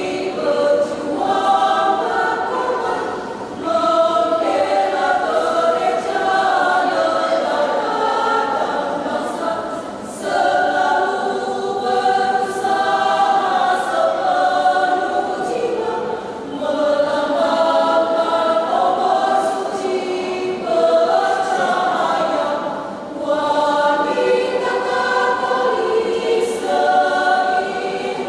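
Women's choir singing in parts, in long phrases with short breaks for breath every six or seven seconds.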